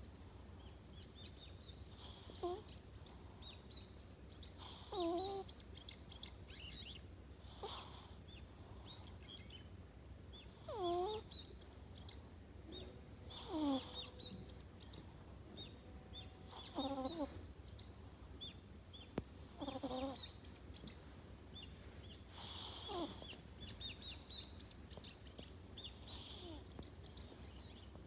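Domestic cat snoring in its sleep: a short breath with a pitched, gliding nasal snore about every three seconds, steady and regular. The snoring is something a vet thought might come from small nostrils; the cat is otherwise healthy.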